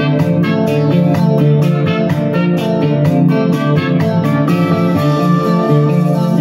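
Electronic keyboard playing an instrumental tune in a plucked, guitar-like voice over a bass line, notes struck in a steady rhythm, then held longer from about four and a half seconds in.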